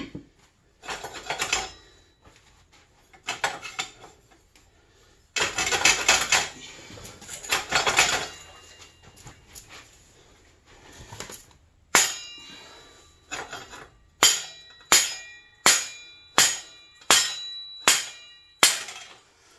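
Hammer blows on steel as the swingarm pivot shaft of a 1984 Honda ATC 200X is driven out. Irregular metallic clattering and knocking come first, then about halfway through a steady run of sharp, ringing strikes, roughly one every three-quarters of a second.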